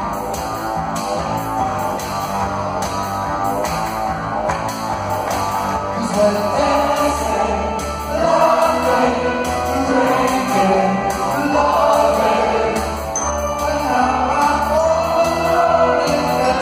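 Live synth-pop band playing, with a man singing over synthesizers, heard through a phone's microphone in a concert hall. A heavier, pulsing bass line comes in about six seconds in.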